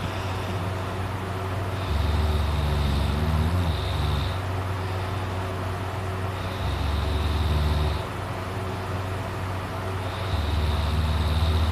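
A person snoring: three low snores about four seconds apart, each lasting a second or two, over a steady hum.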